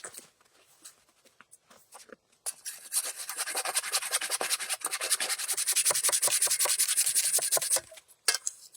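Hand saw cutting wood: a fast, even run of rasping strokes that starts about two and a half seconds in and stops shortly before the end, followed by a single sharp knock.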